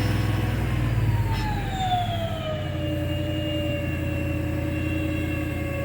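A steady low engine rumble with a whining tone that slides down in pitch over about two seconds and then holds steady.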